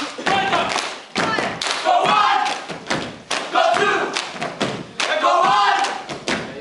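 A group of stomp dancers stamping their feet hard on a stage floor, with loud group shouts and chanting between the stamps.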